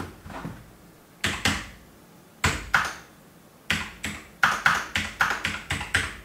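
Computer keyboard keys being typed: a few separate keystrokes, then a quicker run of clicking in the second half as a number is keyed in.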